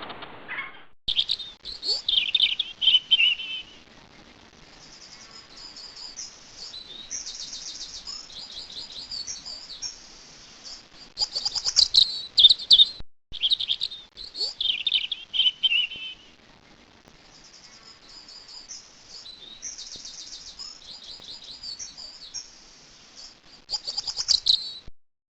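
Songbird singing: short phrases of fast high trills and notes that slide downward, separated by brief pauses, with the same sequence of phrases coming round again about halfway through.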